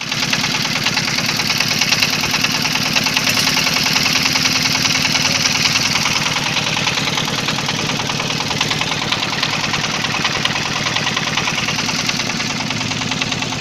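A wooden boat's engine running steadily, with a rapid, even beat.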